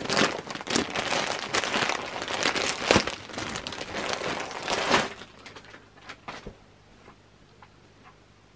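Clear plastic bag crinkling and rustling as it is torn open and a folded beach towel is pulled out of it. The crinkling stops about five seconds in, and a few faint rustles follow.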